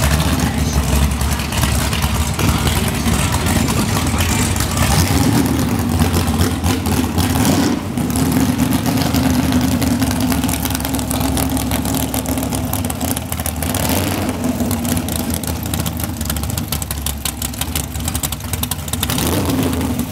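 Front-engine dragster's blown V8 running loud and lumpy through its open headers as the car creeps along at low speed. The engine speed rises slightly now and then.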